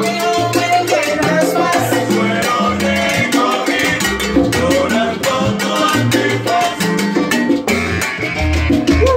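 Live salsa band playing: conga drums, timbales with a cymbal, maracas and a metal güiro over deep bass notes, with wavering melody lines above.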